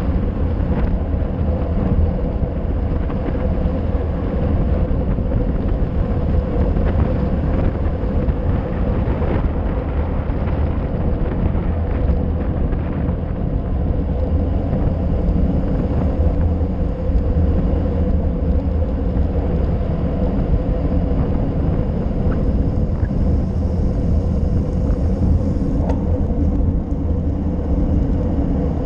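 Wind rushing over a handlebar-mounted GoPro Session and road-bike tyres rumbling on asphalt on a fast downhill: a loud, steady rush over a deep rumble.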